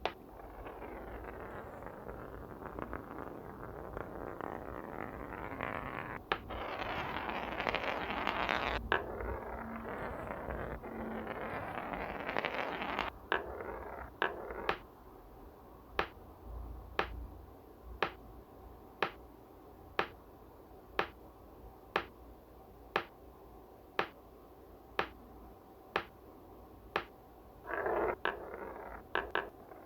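Marbles rolling along a marble track, a steady rolling rattle for the first dozen seconds or so. Then come sharp clicks, evenly spaced at about one a second, with a short burst of rolling again near the end.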